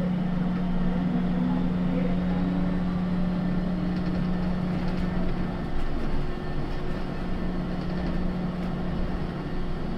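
Inside a moving SFO AirTrain automated people mover: a steady electric hum over a constant running rumble. The hum dips briefly about six seconds in.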